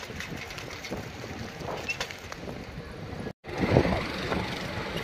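Outdoor street background noise with wind on the microphone and a few faint clicks. The sound drops out for a moment a little over three seconds in, then returns with a brief louder rush of noise.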